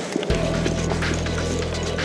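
Background music: a low droning bass note comes in suddenly about a third of a second in and holds steady.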